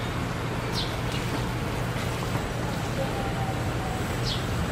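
Brown sugar syrup boiling hard in a small ladle over a charcoal stove, a steady bubbling sizzle. The bubbles are big, which is taken as the sign that the syrup still holds too much water.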